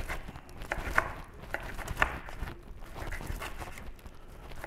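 Chef's knife slicing cooked flank steak on a cutting board: light knocks of the blade meeting the board, roughly two a second at an uneven pace.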